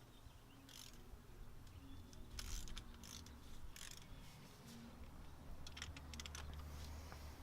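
Ratchet wrench clicking in a few short spells with scattered metal clicks, on the BMW E36 cylinder head bolts being tightened down. A faint low hum comes in about halfway through.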